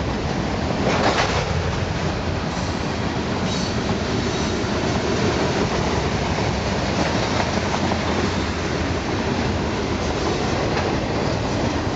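Freight cars of a short freight train (tank cars, covered hoppers and boxcars) rolling past: a steady loud rumble and clatter of steel wheels on the rails, with a brief sharper metallic noise about a second in.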